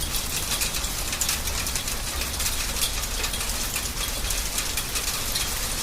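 Hail falling steadily, many hailstones striking hard surfaces as a dense rapid clatter of small clicks, over a low rumble.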